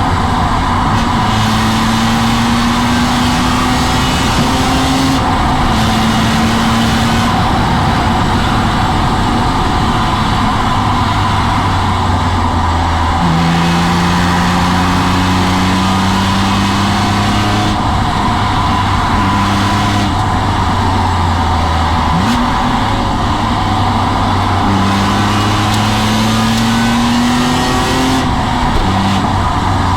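BMW M3 E46's S54 3.2-litre straight-six under hard driving on track. The engine note climbs in pitch through each gear and drops at the gear changes, over steady road and wind noise.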